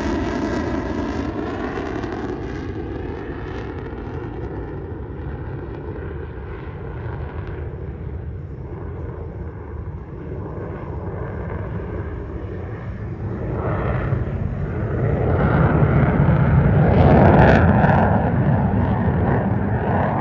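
F-22 Raptor's twin F119 jet engines in a low pass: falling whining tones as the jet moves away at first. Then the roaring engine sound builds again to its loudest about three-quarters through and eases off near the end.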